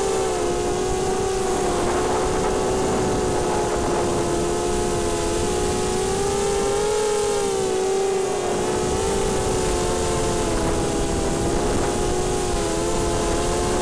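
Electric motors and propellers of a small FPV multirotor drone whining steadily in flight. The pitch wavers up and down with the throttle and rises a little around the middle.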